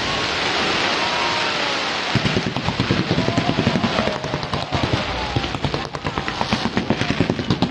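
Fireworks display: a dense hiss of launches and bursts, turning into rapid crackling about two seconds in.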